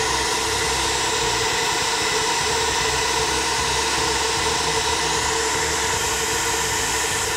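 SuperFlow flow bench running at its test pressure of about 28 inches of water, its motors pulling air through a CNC-ported cylinder head's intake port at about 370 CFM. A loud, steady rush of air with a constant whine underneath.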